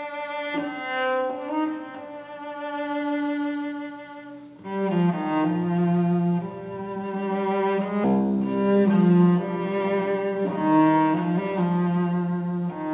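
Slow bowed-string music in long held notes, with a lower cello line coming in and growing louder about five seconds in.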